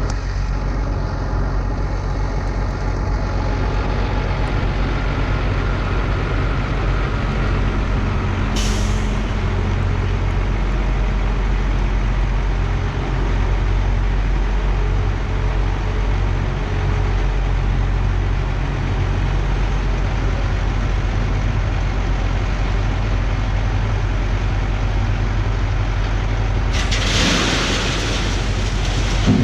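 Diesel engine of an International 4700 dump truck running steadily under way. A short hiss of air comes about nine seconds in, and a longer, louder hiss near the end.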